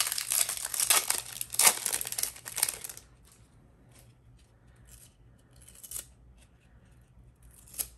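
Foil wrapper of a 1999 Bowman Chrome football card pack being torn open and crinkled for about three seconds, then only a few faint clicks.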